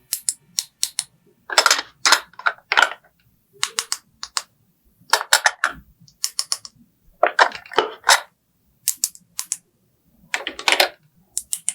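Small hard plastic toy pieces clicking and clacking as they are handled and set down, in quick runs of several clicks with short silent pauses between.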